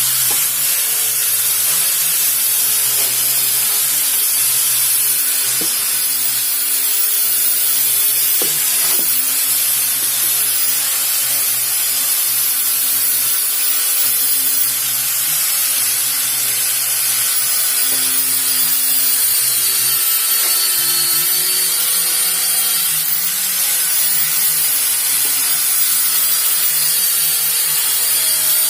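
Electric power sander running steadily against wood: a continuous loud hiss of abrasive on the surface, with a thin high motor whine on top.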